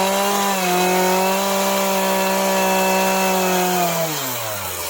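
A high-speed power tool cutting into black walnut, its motor holding a steady pitch over the rasp of the wood. About four seconds in it is let off and winds down, its pitch sliding lower.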